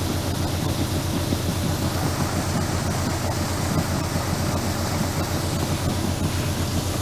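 Electric grain auger running steadily while carrying freshly harvested winter barley up to the storage loft: an even rushing noise over a fast, regular low mechanical pulse.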